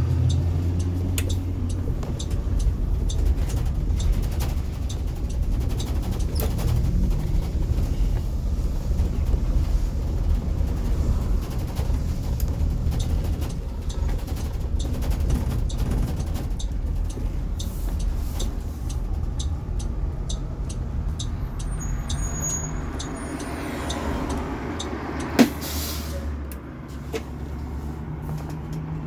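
Cabin noise inside a 2018 Blue Bird electric school bus on the move: a steady low road and tyre rumble with frequent small rattles and clicks from the bus body. About 25 seconds in there is a sharp click and a brief hiss of air, typical of the air brakes, and the rumble eases slightly afterwards.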